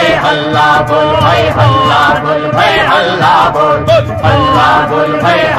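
A crowd of protesters chanting slogans together in a sung, melodic way, many voices at once.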